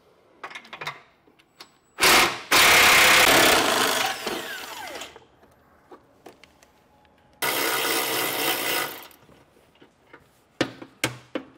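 Cordless power tool spinning a socket to run 18 mm nuts off the bumper studs. It makes two runs: the first lasts about three seconds, is the loudest and trails off, and the second lasts about a second and a half. A few light clicks come near the end.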